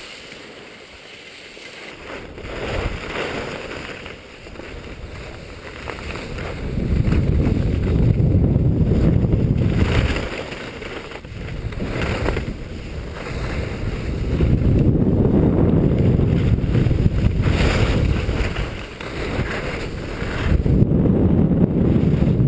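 Wind buffeting the microphone of a skier's camera, a low rumble that swells and eases three times, over the hiss and scrape of skis running on hard-packed snow.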